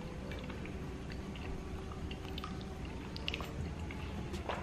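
A man chewing a spoonful of food, with soft wet mouth sounds and scattered small clicks.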